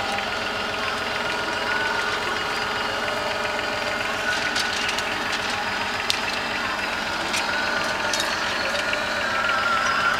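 Engine of a slow-moving self-propelled field carrier running steadily, with a few sharp light clicks over it.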